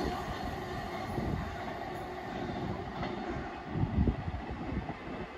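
A passing passenger train receding, its noise fading to a lower rumble, with a few louder low thumps in the second half.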